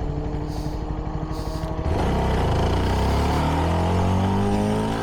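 CFMoto 300NK's single-cylinder engine through its stock exhaust, running steadily at low revs; about two seconds in the throttle opens, the engine gets louder and its note climbs for a couple of seconds, then holds as the bike accelerates.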